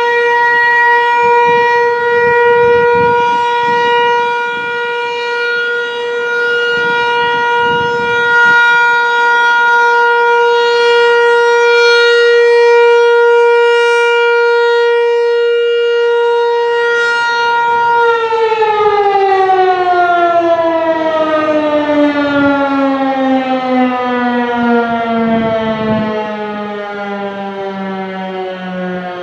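Federal Signal Equinox outdoor warning siren holding one steady, loud tone, then winding down about two-thirds of the way through, its pitch sliding steadily lower.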